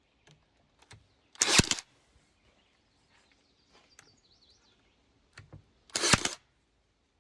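A nail gun fires twice, about four and a half seconds apart, each shot a sharp crack with a short rush of noise, driving nails into a plywood cart frame. A faint bird chirps between the shots.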